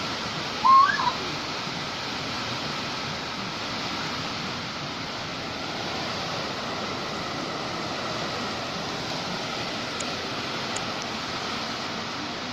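Steady rushing of heavy rain and wind in a tropical storm. About a second in, one short high chirp that rises in pitch.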